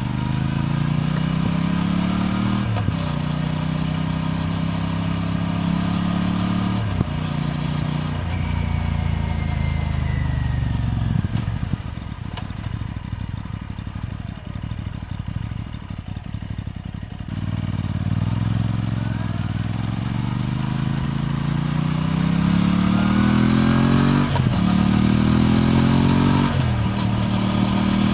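Aprilia RS 457's parallel-twin engine and exhaust as the bike pulls up through the gears, its pitch rising with each gear and dropping at upshifts about three and seven seconds in. It then eases off and runs quieter at low revs for several seconds before accelerating again, with two more upshifts near the end.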